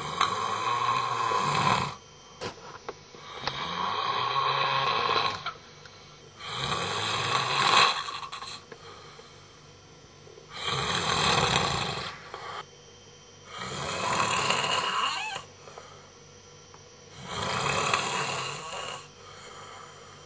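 A sleeping man snoring: six long snores in a steady rhythm, one about every three seconds, each lasting under two seconds.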